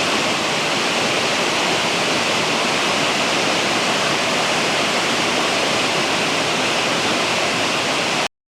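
Steady rush of the Ahār River's water pouring over rocks, cutting off suddenly near the end.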